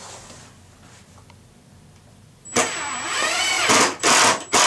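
Power drill driving a 1-inch wood screw into a drawer-box joint: the motor starts about two and a half seconds in and runs for about a second with its pitch curving as the screw goes in, then gives short bursts near the end to seat the screw flush.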